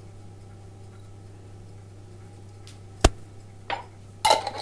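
A spoon and a small glass salt jar with its lid being handled: one sharp click about three seconds in, then a few small clinks near the end, over a faint steady hum.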